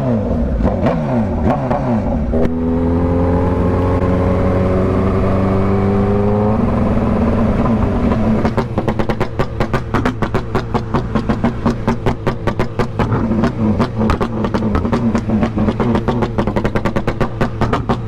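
Honda CBR sport bike's inline-four engine through a loud exhaust, revving up as it accelerates, with a drop in pitch at a gear change about six and a half seconds in. It then runs steadily with a fast, regular flutter.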